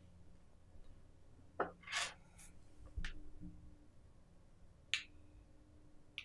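Hands handling a smartwatch and its magnetic charging cable. There is a brief rubbing sound about two seconds in, then a few light clicks and taps, the sharpest about five seconds in.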